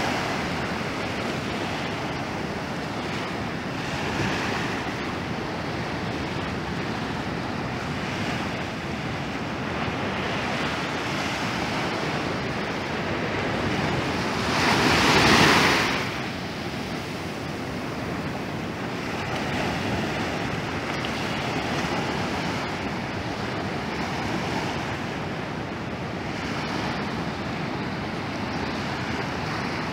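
Small surf waves breaking and washing up over a sandy beach: a steady rush of water that swells every few seconds, loudest as one wave breaks about halfway through.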